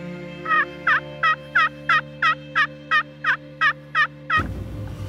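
Turkey pot call (friction call) worked with a wooden striker, making a run of about a dozen hen-turkey yelps, roughly three a second. The yelps stop near the end, and a low rumble comes in suddenly.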